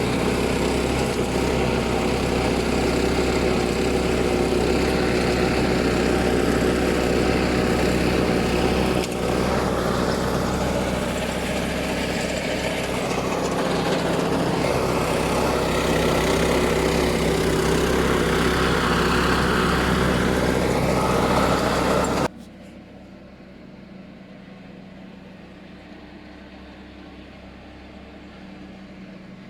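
Walk-behind tractor (motoblock) engine running steadily. The sound drops away abruptly about 22 seconds in, leaving a much fainter steady engine hum.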